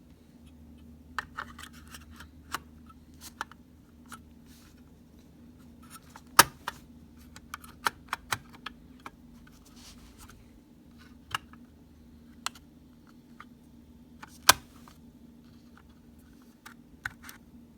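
Scattered clicks and light knocks of a laptop hard drive caddy holding a Samsung SSD being set into a laptop's drive bay and slid into its connector, with two sharper clicks about six and a half and fourteen and a half seconds in.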